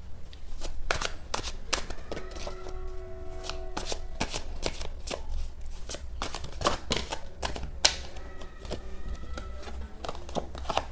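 A tarot deck being shuffled by hand: a long, irregular run of quick card clicks and flicks.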